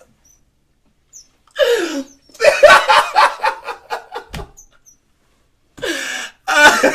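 A man laughing hard in two bouts with a pause of about a second between them, each bout opening with a breathy gasp and running on in quick, loud pulses of laughter.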